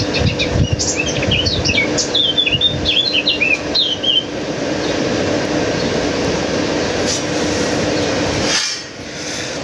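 Birds chirping in a quick run of short calls during the first few seconds, over a steady rushing noise that drops away near the end.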